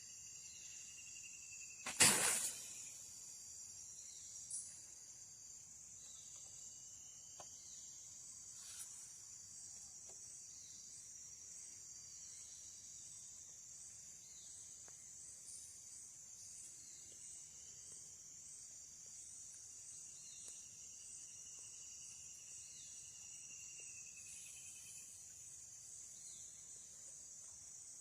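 Steady high-pitched insect drone of the flooded forest, with many short repeated chirps and a few long falling whistled calls. About two seconds in, a sudden sharp noise lasts about half a second and is the loudest thing here.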